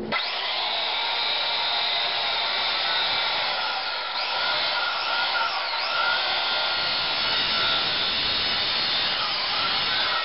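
Ryobi corded circular saw started and running, its blade cutting through a rack of raw ribs in plastic wrap. The whine dips in pitch a few times as the blade bites, and it cuts off near the end.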